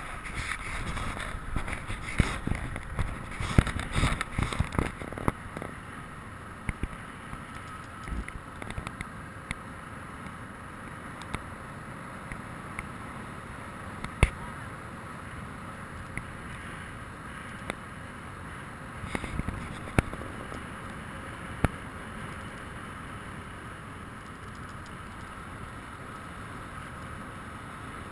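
Motorcycle riding over a rough dirt track with the bike-mounted camera: steady engine and wind noise, broken by knocks and rattles from bumps. The knocks come thick and fast in the first few seconds, then only a few sharp single knocks later on.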